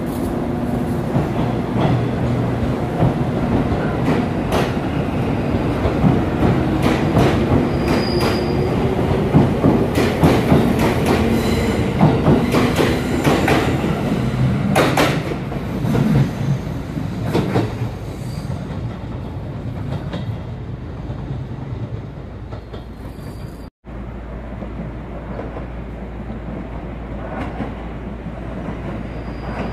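JR Kyushu 787 series electric express train accelerating past along the platform: the motor whine rises steadily in pitch as it picks up speed, with many sharp wheel clacks over the rail joints. It fades after about 18 s, and after a cut near 24 s only a quieter steady station background remains.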